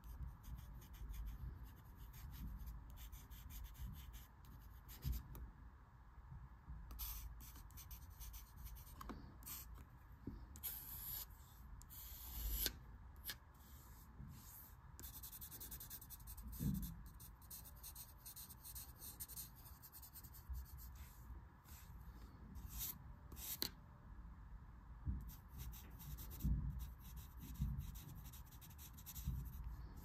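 Yellow wooden pencil scratching across drawing paper in short, irregular sketching strokes with brief pauses.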